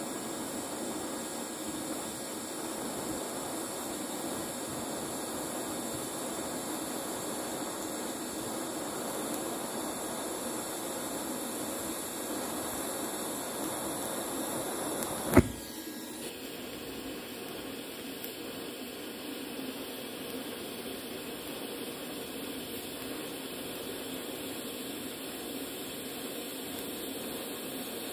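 TIG welding arc on steel from a Jasic TIG 200 inverter welder: a steady hiss with faint high-pitched whining tones as filler rod is fed in. A single sharp click about halfway through, after which the hiss sounds slightly different.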